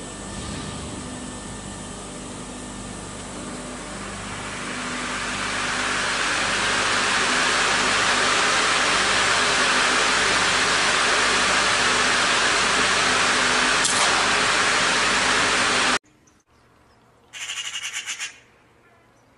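Loud, steady rushing of vehicle noise that swells about four seconds in and cuts off suddenly. Near the end comes a single harsh call, about a second long, from a crow-family bird.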